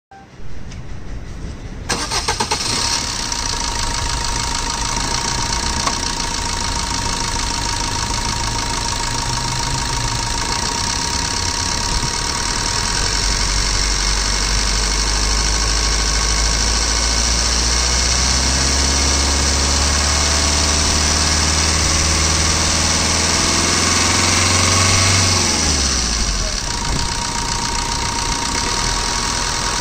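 Maruti Suzuki Swift VDi's 1.3-litre DDiS four-cylinder turbodiesel, heard with the bonnet open, starting about two seconds in and then running steadily. From roughly the middle the revs climb slowly for several seconds, then drop sharply back to a steady idle.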